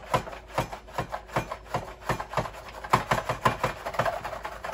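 Pampered Chef Rapid-Prep Mandoline being pumped fast, its plunger pushed down again and again to cut carrot into sticks: quick, regular chopping knocks, about four a second.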